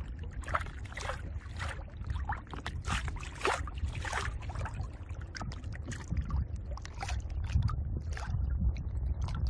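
Water splashing and slapping against a moving canoe's hull in irregular bursts, over a steady low rumble.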